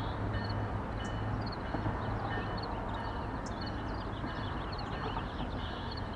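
Small birds chirping over and over above a steady low rumble and hum.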